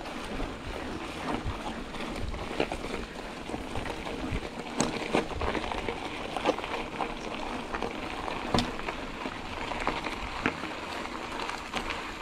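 Mountain bike rolling over a rough trail: a steady rushing noise broken by frequent short knocks and rattles from the bike.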